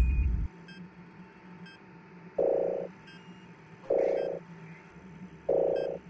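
A low rumble cuts off about half a second in. Then a low electronic beep of about half a second repeats every second and a half, three times, over faint regular ticking.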